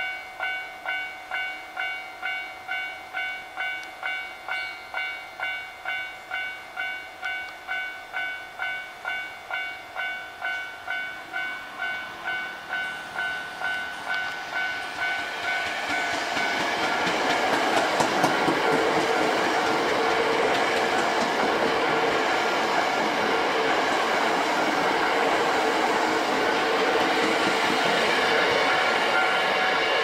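Japanese level-crossing alarm ringing in a fast, even ding-ding beat. From about 15 seconds in, a Hankyu electric train passing the crossing at speed swells up, and the steady noise of its wheels on the rails all but covers the bell.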